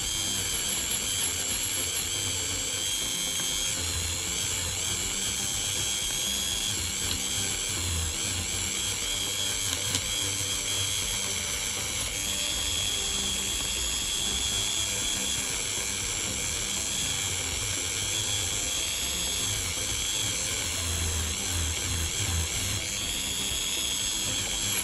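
Handheld rotary tool spinning a small soft cup brush against the rusted steel stator housing of a small DC motor: a steady high-pitched whine with scrubbing, rising and falling slightly as the brush is pressed on. Background music plays underneath.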